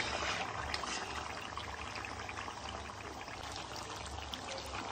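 Boiled chicken pieces deep-frying in hot oil in an iron kadai: steady sizzling, dotted with many small pops and crackles.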